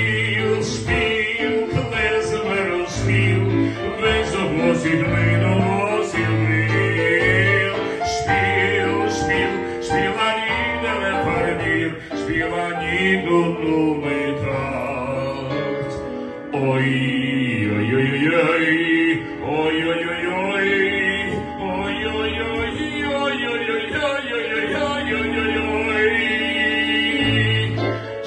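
Live party music: a man singing into a microphone over a recorded backing track with a steady bass line, following a violin passage at the very start.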